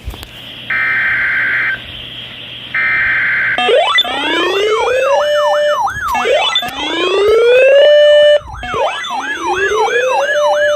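Emergency Alert System broadcast: two short bursts of buzzing digital header tones, then electronic siren sounds start. The sirens are several overlapping rising wails and fast yelps, repeating every couple of seconds.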